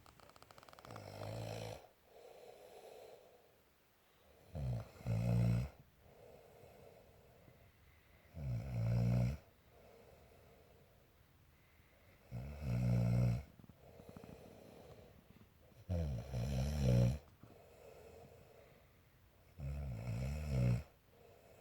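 A sleeping woman snoring, a loud snore about a second long roughly every four seconds, with a quieter breath between snores.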